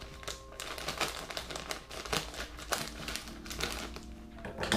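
Scissors cutting open a plastic bag, and the bag crinkling as it is handled, in short irregular crackles.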